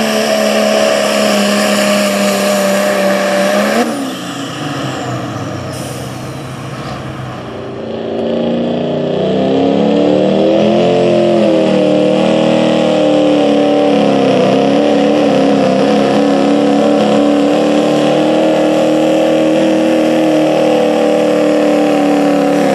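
Turbocharged diesel pickup engines at full throttle pulling a truck-pull sled. A Dodge Ram's steady high engine note breaks off about four seconds in. After a quieter stretch, a Chevrolet Silverado's engine builds up about eight seconds in, wavers in pitch, then holds a steady, loud high note to the end.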